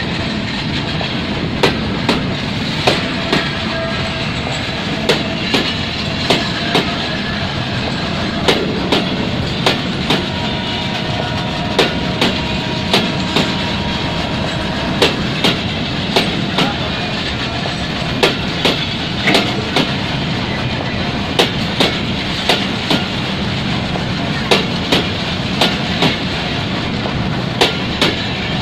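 Train of empty tank wagons rolling along the track: a steady rumble with the wheels clicking over the rail joints in a regular clickety-clack.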